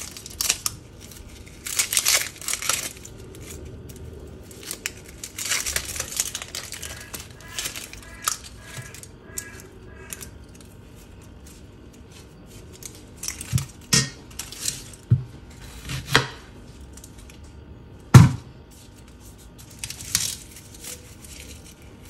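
Dry, papery onion skins being peeled off by hand: irregular crinkling and tearing, with a few dull knocks, the sharpest about 18 seconds in.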